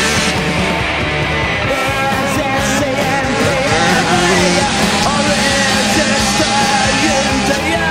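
Loud rock music with a sung vocal over heavy, driving guitars and drums.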